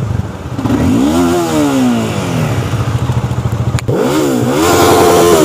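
Motorcycle engines idling, then a bike is revved twice, the pitch rising and falling each time, about a second in and again near the end. A sharp click comes just before the second rev.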